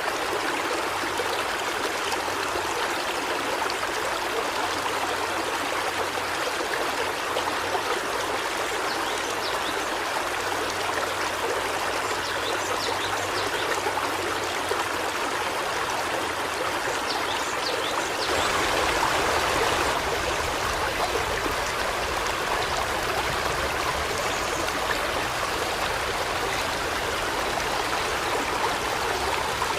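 River water rushing and burbling steadily over rocks, with a few faint high bird chirps partway through. The flow swells slightly louder and fuller for a couple of seconds about eighteen seconds in.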